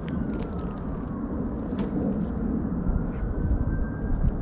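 A low outdoor rumble with a faint engine drone whose pitch falls, then rises again. A few small clicks stand out.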